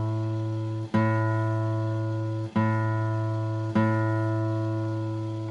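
A guitar's open A string, plucked three times and left to ring out each time, a low steady note as the string is brought into tune.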